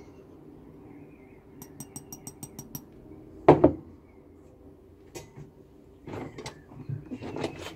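Wire holding a lead jig head clinking against a glass jar of plastic coating powder. A quick run of light taps comes about two seconds in, then one louder knock, and scattered clatter near the end, all over a low steady hum.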